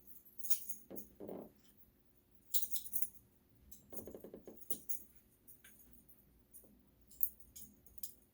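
Small metal parts clinking and jangling in several short bursts, with a sharp click near the end.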